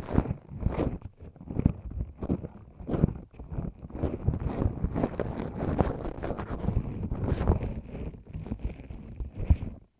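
Ear pick scraping and rubbing against the microphone in an ASMR ear-cleaning simulation: close, irregular short strokes, with a sharper scrape near the end.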